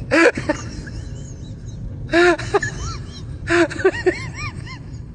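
A dog whining and yowling in short, high cries that rise and fall, coming in three bursts: one at the start, then a few about two seconds in and again near four seconds.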